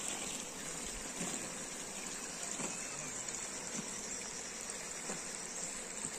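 A honeybee swarm buzzing: a steady, dense hum, with a few faint ticks.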